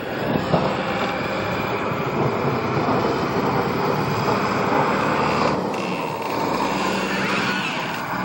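Diesel engine of a heavy snow-clearing vehicle running under load, a steady loud mechanical noise.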